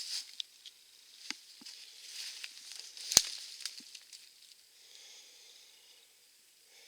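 Dry leaves and brush rustling and crackling as they are handled or stepped through, with scattered light clicks and one sharp snap about three seconds in; a fainter steady rustle follows.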